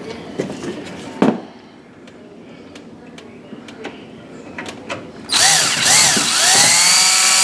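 DeWalt cordless drill driving a screw into the oven door's hinge bracket: a few clicks and taps as the screw is set, then about five seconds in the motor starts whining, its pitch rising and falling as the trigger is eased on and off.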